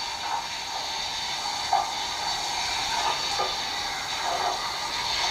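Steady hiss of a water spray rinsing a part of a drum washing machine.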